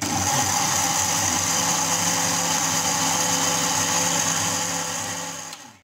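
National electric blender switched on and running steadily at full speed, its motor and blade churning bananas with milk and condensed milk into a shake; it stops abruptly near the end.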